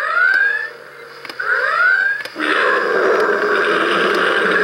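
Star Trek Borg Bank electronic coin banks sounding a red-alert klaxon through their small speakers: two rising whoops. About halfway through, a steady whir takes over as the Enterprise models are drawn into the cubes.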